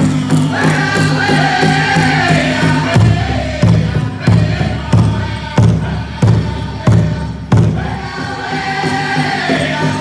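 Powwow drum group singing in unison over a big drum beaten together. From about three seconds in, the drum comes as loud separate strikes about two-thirds of a second apart, and the full singing picks up again near the end.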